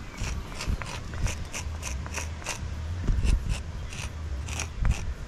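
Wooden pointing stick scraping along lime mortar joints in brickwork, a run of short, gritty strokes about two or three a second as the joints are tooled.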